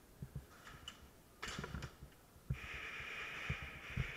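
Soft low thuds of footsteps and gear movement from a player moving around, then a steady hiss lasting over a second near the end.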